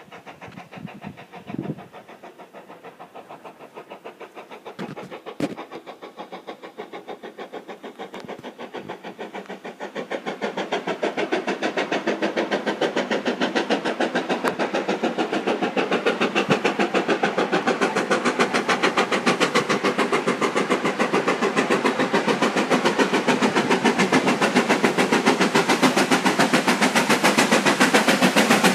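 GWR Hall class 4-6-0 steam locomotive working a train, its exhaust beats a fast, even chuffing that grows steadily louder from about a third of the way in as the engine approaches.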